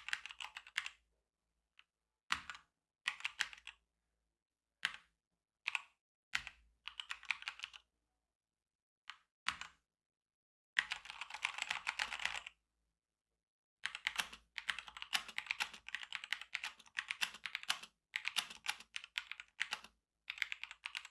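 Keys of a Motospeed CK67 mechanical keyboard being pressed in quick runs of clicks, with short silent pauses between them. There is a longer stretch of fast typing about halfway through and another through most of the last third.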